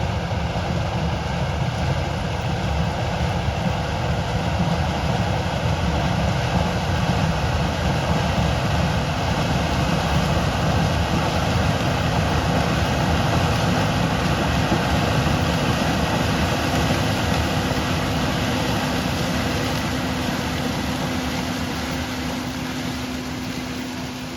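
Case IH 7130 Axial-Flow combine running steadily while harvesting corn, its engine and threshing machinery making a continuous dense drone with a steady hum, fading away near the end.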